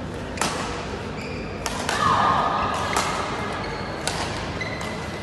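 Badminton rackets striking a shuttlecock in a rally: four sharp cracks roughly a second and a quarter apart, echoing in a large hall. A louder sound about two seconds in lasts around half a second.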